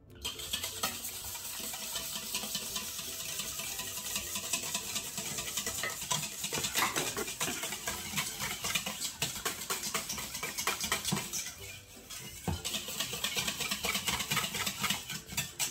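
Wire whisk beating a runny egg, milk and melted-butter mixture in a stainless steel bowl: a fast, continuous clatter of wires scraping and tapping the bowl, with a brief pause about twelve seconds in.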